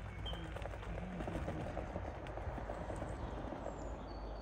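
O gauge live-steam model of a Southern Railway Schools class locomotive running, with a rapid, even patter of clicks over a steady hiss.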